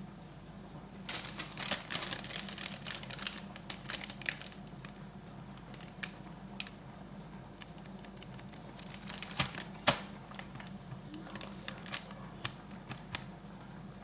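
Soft plastic baby-wipes pack being handled, crinkling and rustling in irregular bursts with scattered sharp clicks and taps; the loudest snap comes about ten seconds in.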